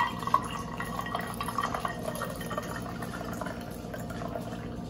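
Liquid poured from a bottle into a glass of ice cubes: a continuous splashing trickle with many small ticks, and one sharp click just after the start.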